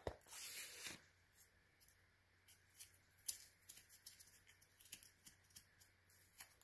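Faint scattered clicks and light scrapes of hands handling an ATV's front brake caliper, with a short hiss in the first second.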